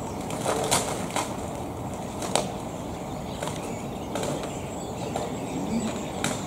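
Steady outdoor background noise with a few sharp clicks and cracks, the strongest about two and a half seconds in.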